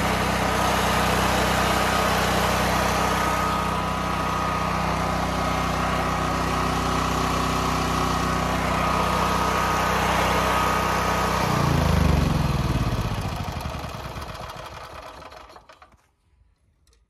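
Generator engine running steadily while warming up, with a steady whine, then shut off about two thirds of the way through, its pitch falling as it runs down to a stop.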